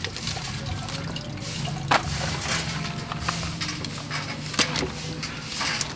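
Liquid splashing and dripping during the butchering of a goat, over a low steady hum, with two sharp knocks, about two seconds in and near the end.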